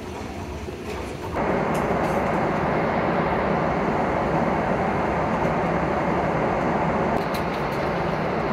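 Steady rushing cabin noise of a Boeing 777 airliner in flight. It cuts in abruptly about a second and a half in, after a quieter stretch of hum.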